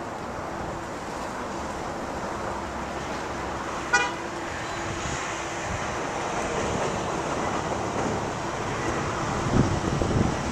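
Steady street traffic noise with one brief car-horn toot about four seconds in. Wind buffets the microphone near the end.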